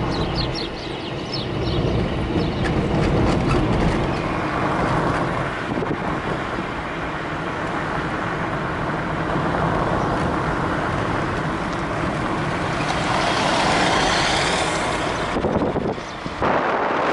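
Car driving along a rough, potholed road, heard from inside the cabin: steady engine and tyre rumble. About thirteen seconds in, a louder rushing noise swells up and then cuts off suddenly.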